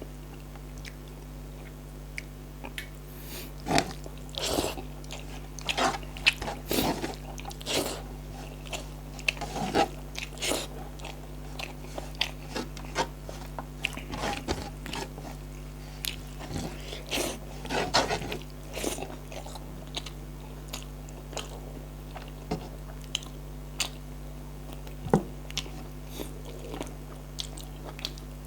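A person eating close to the microphone: irregular chewing, biting and crunching mouth sounds with wet smacks.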